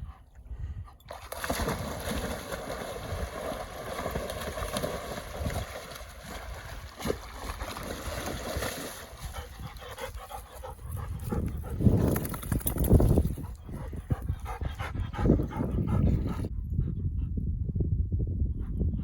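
A dog whining and barking over a steady rushing noise that fades out near the end.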